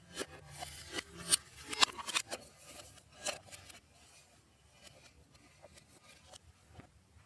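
Slime being mixed and squeezed by hand, making a run of sharp clicks and crackles for about the first three seconds, then only scattered faint clicks.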